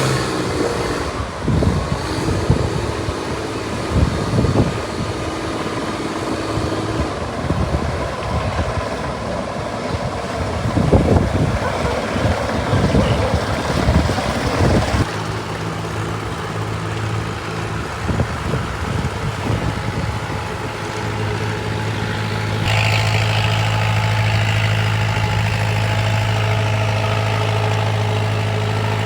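An engine running steadily with a low, even hum, and irregular knocks and thumps over it during the first half.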